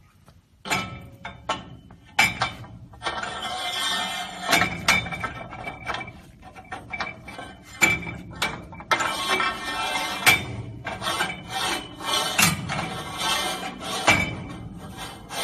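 Metal parts clinking and scraping against each other, with a dozen or so sharp knocks scattered through and brief ringing after some of them.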